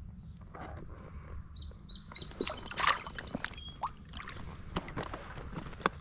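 A small bird chirping a quick run of short, high, repeated notes about one and a half seconds in, among scattered clicks and rustles and a steady low rumble.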